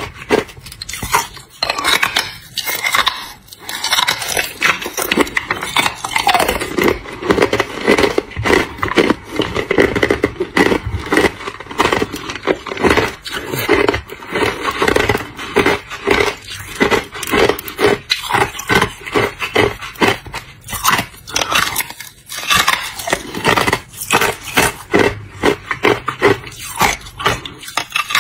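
A person biting and chewing hard clear ice: dense, irregular crunching and cracking, several cracks a second, with a fresh bite into the ice slab near the end.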